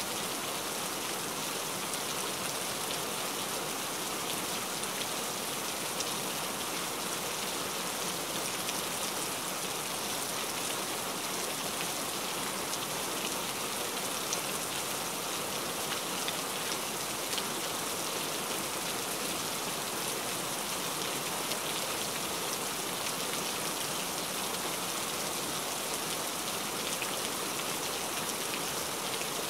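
Steady rain, an even hiss of falling drops with fine, scattered patter.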